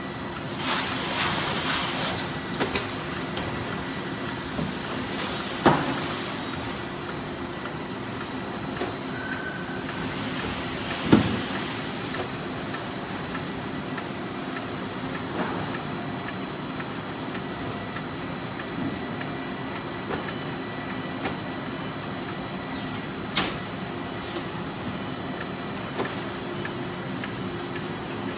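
Automatic carton-packing machinery running: a steady hum with several held tones, a burst of hiss about a second in, and scattered sharp clacks of the mechanism, the loudest about eleven seconds in.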